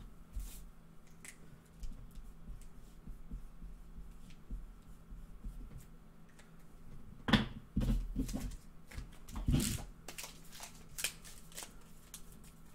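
A foil trading-card pack being handled and torn open, then the cards inside being shuffled through: soft rustling with many small clicks, and two louder crinkles a little past halfway.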